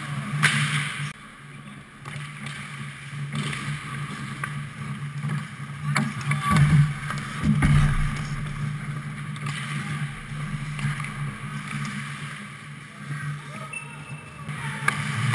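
Ice hockey play close to the net: skate blades scraping the ice and sharp clacks of sticks and puck, several of them, the loudest about six to eight seconds in, over a steady low hum.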